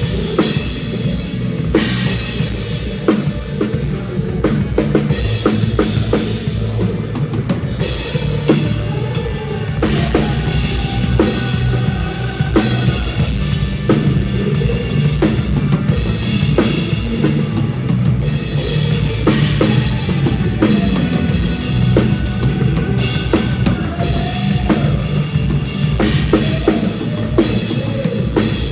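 Full drum kit playing a steady beat with kick drum, snare and cymbals, over band music with a bass line underneath.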